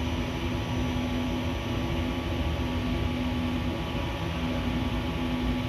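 Steady low machine hum over an even rushing noise, the hum tone dropping out and returning every second or two.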